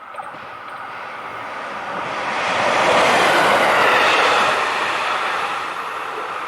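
A single-car JR Hokkaido H100 DECMO diesel-electric railcar passing over a level crossing: a smooth rush of wheel, rail and engine noise that swells to its loudest about three to four seconds in, then fades as it moves away. The track is continuous welded rail, so there is no regular clickety-clack of rail joints.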